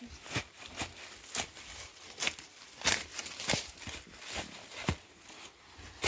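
Footsteps crunching and rustling through dry leaf litter, a sharp crackle every half second or so at an uneven pace.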